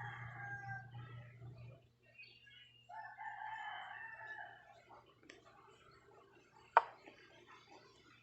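A rooster crowing twice, each crow a long held call, the second starting about three seconds in; near the end comes a single sharp click.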